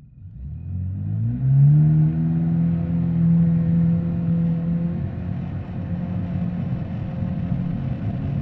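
Jet ski engine heard from inside its engine compartment, revving up with its pitch rising over the first second or two, then running steadily at speed.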